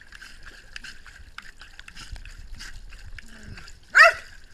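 Water splashed by hand and dripping in a pool, then one short, sharp dog bark about four seconds in.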